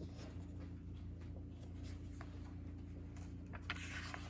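Faint paper rustling and soft ticks of a picture-book page being handled and turned, more of it near the end, over a low steady hum.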